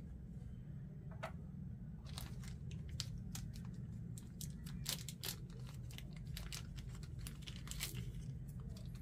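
A small plastic parts bag being torn open and crinkled, in a string of short, crisp rustles and clicks.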